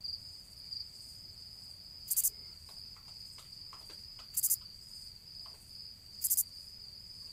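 Crickets chirping: a steady high trill with three louder chirps about two seconds apart, starting abruptly like an edited-in sound effect.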